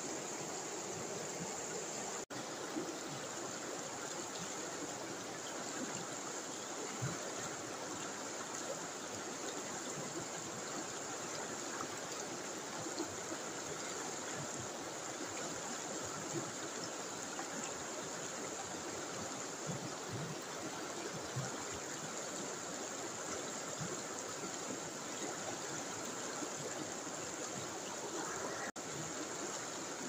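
River water rushing over rocks in shallow rapids, a steady rush of white water. Two very brief gaps in the sound break it, a couple of seconds in and near the end.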